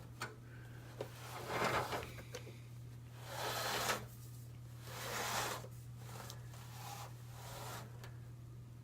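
A box fan being turned around by hand: several swells of rubbing and scraping with a couple of light clicks, over a steady low hum.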